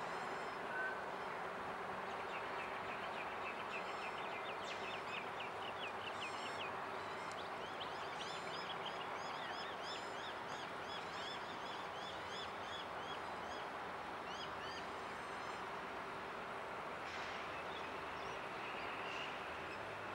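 Birds calling in fast repeated chirping series, over a faint steady drone of diesel locomotives approaching in the distance.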